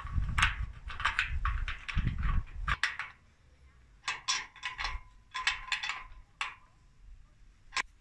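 Galvanized steel clamp bracket scraping and clicking against a square steel rail as it is fitted by hand, in short bursts, with a pause about three seconds in and a single sharp click near the end.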